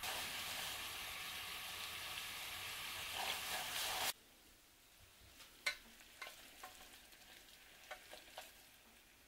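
Honey and starch syrup boiling down in a stainless saucepan, bubbling and hissing while a silicone spatula stirs it; the syrup is being reduced until it will set hard when cool. The sound stops abruptly about four seconds in, followed by a few light clicks and taps.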